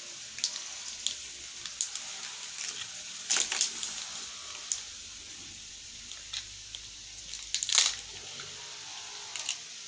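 Kinder Joy plastic toy capsules and paper wrappers being handled and opened: scattered crinkling and small plastic clicks, loudest in two short clusters, about a third of the way in and near the end.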